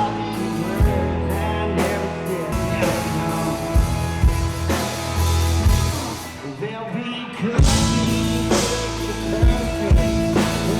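Rock music with a drum kit, guitars and singing.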